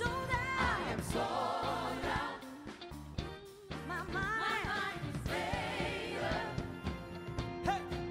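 Live worship song: a group of singers on microphones sings together over keyboard and drums, with a voice gliding up and down in runs.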